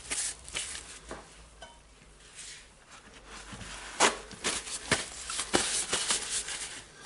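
Hand-handling noise on a workbench: rustling and scraping with a few light knocks and clicks, busiest in the second half.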